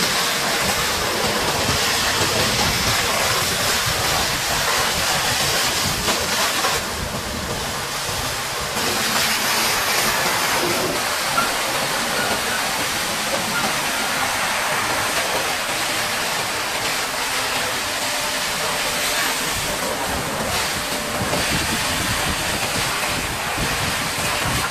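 Water jet spraying onto a Caterpillar D8R bulldozer as it is washed: a steady, loud hiss of spray that thins briefly about seven seconds in and again near twenty seconds.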